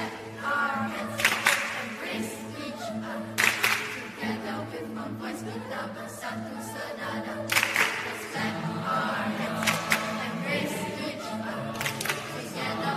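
Mixed youth choir singing, with low voices holding sustained notes under the upper parts, punctuated by several sharp percussive accents such as claps.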